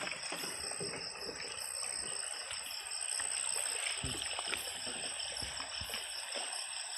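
Shallow freshwater stream trickling over its bed, with a steady high-pitched pulsing trill over it.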